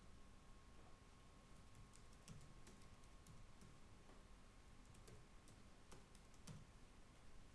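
Faint computer keyboard typing, scattered key clicks coming in two short runs, with a faint steady tone underneath.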